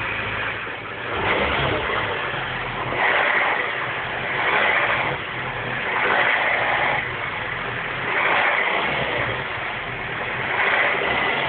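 R56 Mini Cooper S 1.6-litre turbocharged four-cylinder engine running cold with an abnormal noise that swells and fades about six times, every couple of seconds; the owner ties the cold-engine noise to the tensioner.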